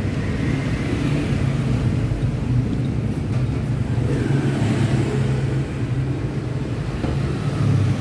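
Street traffic of passing motorbikes and scooters: a steady low engine rumble with no break.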